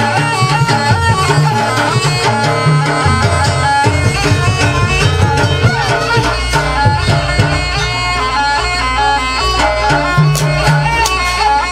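Live traditional Banyuwangi barong/jaranan music: a shrill double-reed pipe (slompret) plays a busy, winding melody over drums and a steady low gong-like drone, with sharp metallic strikes near the end.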